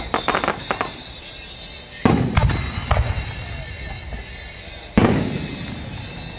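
Aerial fireworks: a quick run of crackling pops at the start, then two loud shell bursts about three seconds apart, each a sudden boom that rolls off in a long echo.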